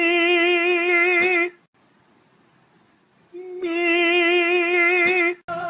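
A voice singing two long held notes with vibrato, each about two seconds, with a short silence between them.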